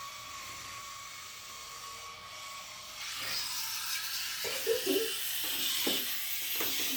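Battery-powered toy turtle's small electric motor whirring as it paddles through bath water, a thin steady whine; about three seconds in, water splashing grows louder, with a faint voice humming softly late on.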